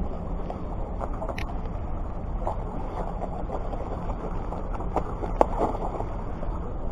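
Steady low rushing of wind and surf, with a few faint clicks.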